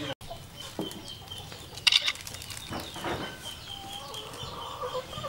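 Chickens clucking in the background, with a steady high chirping and a sharp double click about two seconds in.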